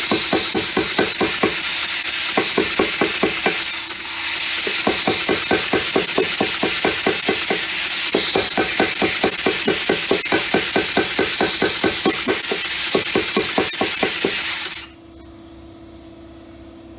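Bulldog air-powered power hammer running, its ram striking red-hot half-inch square bar stock on combo dies in rapid, even blows over a steady hiss. It is drawing the bar down to neck a leaf. It breaks off briefly near four seconds, then stops about fifteen seconds in, leaving a quieter steady hum.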